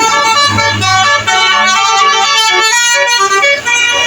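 Basuri-style telolet horn, a truck-mounted musical air horn, playing a tune in quick stepped notes with several tones sounding together.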